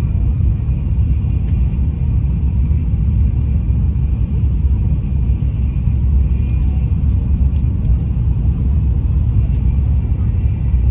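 Shinkansen bullet train running at speed, heard from inside the passenger cabin: a steady, deep running noise.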